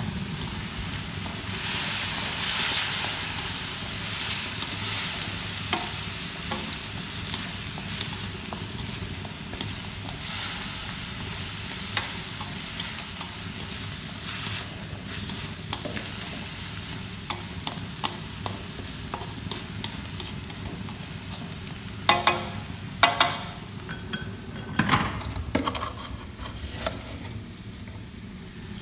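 Chopped meat sizzling as it is stir-fried in a metal wok: a steady hiss with scattered clacks of stirring, and a run of sharper knocks near the end.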